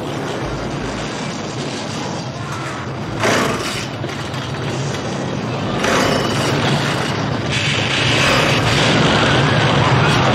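A gasoline chainsaw running and revved in surges, held at a high rev for the last few seconds, over film score music.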